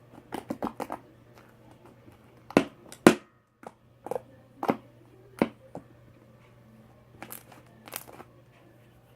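Slime with shaving cream mixed in being squished and kneaded by hand, giving irregular sharp clicks and squishes: a quick cluster in the first second, then single ones every second or so.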